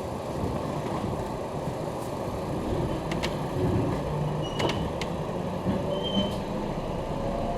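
Inside an electric commuter train running slowly into a station: a steady rumble of wheels on rail, with a few sharp clicks and two brief high squeaks.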